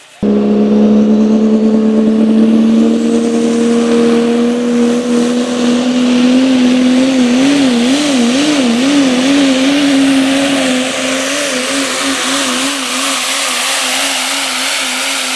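Dodge Ram diesel pulling truck's engine at full throttle hauling the pulling sled. It cuts in suddenly as a loud, steady high drone that climbs slightly in pitch, then wavers quickly up and down several times in its middle stretch as the engine speed surges.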